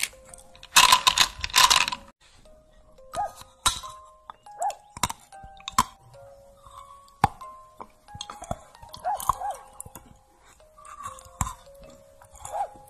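Light background music of short plinking notes over close-miked eating sounds. About a second in, candy-coated chocolates crunch loudly for about a second. Scattered soft clicks and bites follow.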